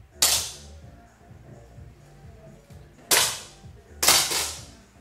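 Air pistols firing pellet shots: one shot near the start, another about three seconds in, and two more in quick succession about a second later, each a sharp pop with a short ringing tail.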